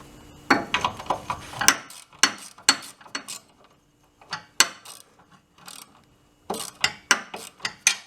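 Ratchet wrench clicking in short runs as an engine mounting bolt is backed out, with a pause between the two runs.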